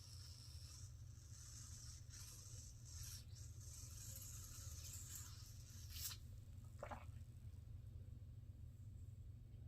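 Faint slurping of hot coffee over a steady low hum, with a sharp click about six seconds in and a short falling sip or gulp sound just after.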